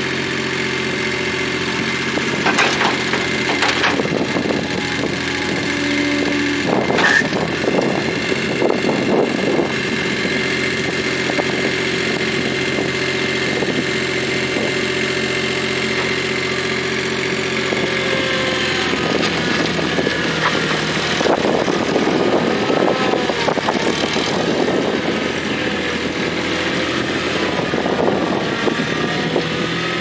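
Gehl 3410 skid steer loader's engine running, with a few sharp knocks in the first several seconds. From about halfway on, the engine note wavers up and down as the machine is worked and driven.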